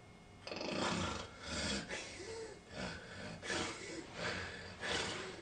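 Snore-like snorting noises from a person, coming in loud irregular bursts every half second to a second.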